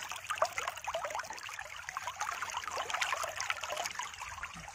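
Shallow spring water trickling and bubbling over gravel and stones in a small hillside stream: a busy, continuous patter of little bubbling sounds.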